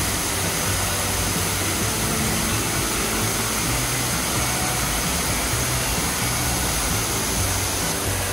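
Steady rushing of a small waterfall, water pouring in several cascades over a rock face, with soft background music underneath.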